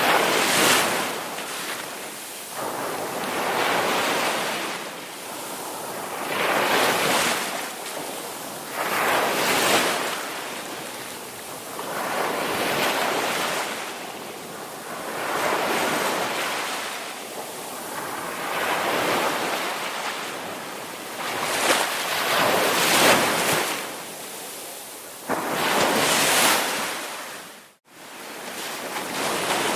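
Ocean waves breaking on a beach: surges of surf that swell and fade every two to three seconds. The sound cuts out for an instant near the end, then the surf resumes.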